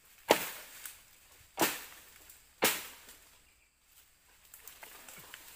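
Three sharp chopping blows into a bamboo stalk, each with a short ringing tail, the later two more than a second apart. Light crackling and rustling follow near the end.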